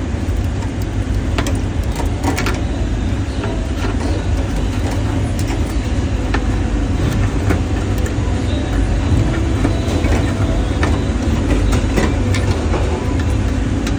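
Hand scraping on a commercial induction cooker being cleaned for repair: scattered scrapes and clicks over a steady low rumble.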